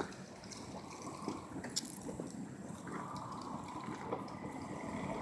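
A car creeping slowly at low engine speed while being repositioned, faint and growing louder toward the end, with a few light clicks.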